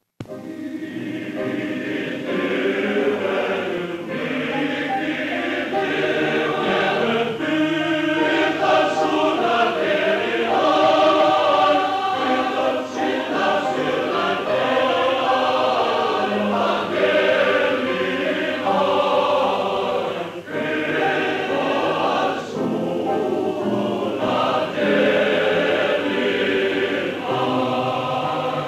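Welsh male voice choir singing in harmony, heard through a dull-toned 1940s film soundtrack.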